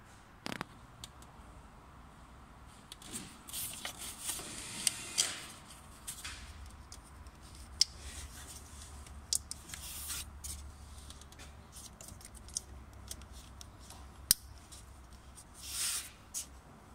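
Hands working among wiring and parts in a car's engine bay: scattered sharp clicks and taps, with short bursts of scraping and rustling a few seconds in, around the middle and near the end.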